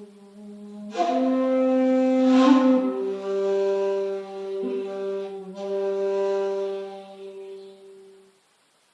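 Handmade 2.8 jinashi shakuhachi playing a slow honkyoku phrase: a soft low note that swells louder about a second in, a breathy accent, then a long held higher note that fades out shortly before the end.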